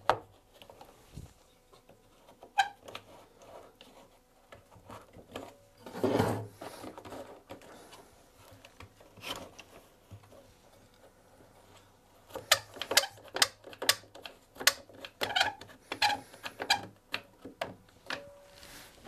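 A clamp being fitted and tightened onto a chair leg held in a vise: scattered knocks and clicks, a heavier thump about six seconds in, then a quick run of clicks from about twelve seconds.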